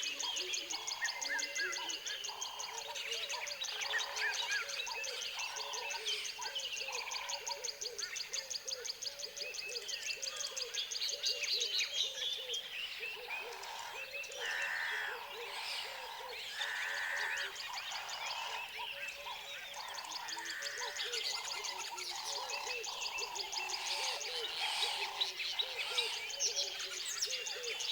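Tropical forest wildlife chorus: many birds calling over one another, with frogs calling in short repeated notes low down. A high, rapid trill runs through the first half and stops about halfway, and two longer held calls come later.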